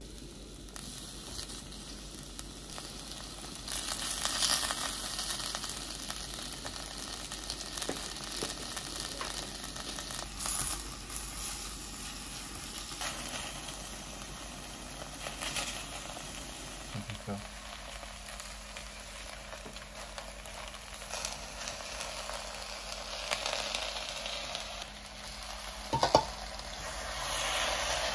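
Thinly sliced beef sizzling as it fries in a clay pot, turned with chopsticks, with scattered small clicks and a single sharp knock near the end.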